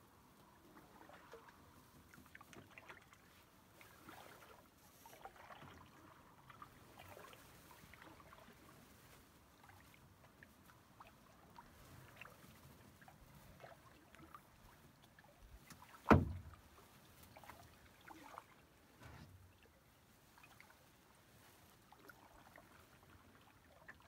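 Canoe being paddled over still water: faint drips and light splashes from the paddle. One sharp knock about two-thirds of the way through is the loudest sound.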